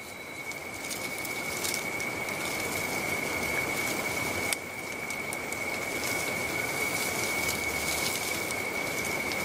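Night forest ambience: a steady, high-pitched insect trill held without a break over an even background hiss, with a slight drop about halfway through.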